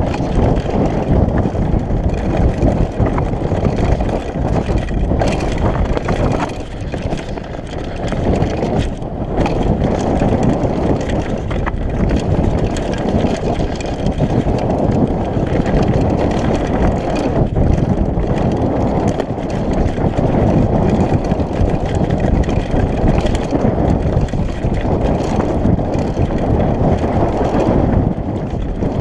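Mountain bike descending a dirt trail at speed: a steady rumble of wind on the microphone and tyres on dirt, with frequent clicks and rattles from the bike over bumps.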